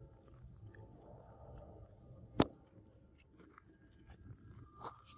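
Quiet outdoor ambience with faint rustles and small ticks, and a single sharp click about two and a half seconds in.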